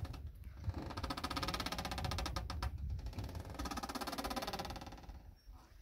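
Engine of a moored aluminium passenger ferry running, a steady fast even pulse with a strong low rumble; it fades away near the end.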